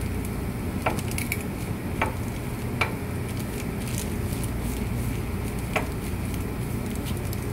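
Aluminum foil crinkling and crackling as hands press and smooth it, along with tape, around a glass bottle: scattered sharp crackles over a steady low hum.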